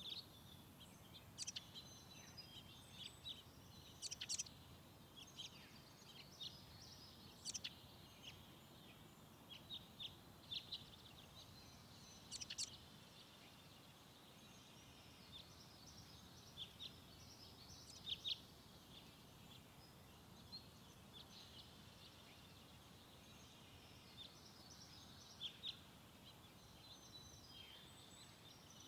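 Faint birdsong: scattered short, high chirps and twitters over a quiet low hiss, coming in irregular clusters every second or two.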